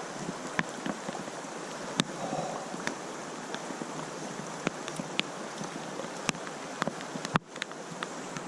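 Rain falling, with scattered close drops ticking sharply, over the steady rush of the creek. A sharper knock comes about seven seconds in.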